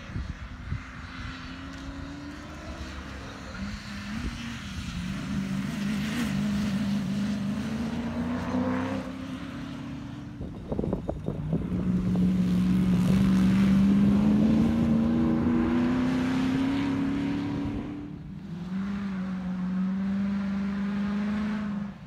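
Comp safari off-road race cars running hard across a field, their engine notes repeatedly rising in pitch as they accelerate through the gears. The engines are loudest and closest just past halfway, after a short clatter of knocks.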